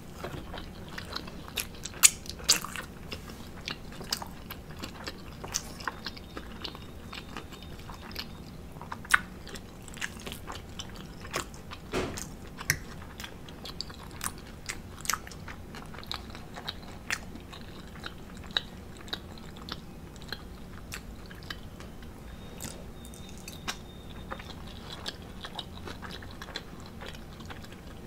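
Close-miked chewing and mouth sounds of a person eating omelet and waffle: a string of sharp, irregular clicks and smacks over a low steady room hum.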